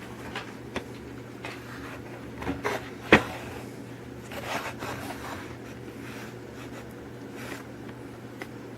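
Small handling noises as a die-cast toy car is picked up and turned over: light rubbing and scattered small clicks, with one sharp click about three seconds in and a brief rustle a little later, over a steady low hum.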